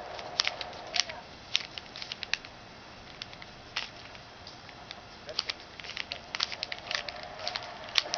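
Rubik's cube being twisted by hand: irregular plastic clicks and clacks as its layers turn, some in quick runs of several and some spaced apart.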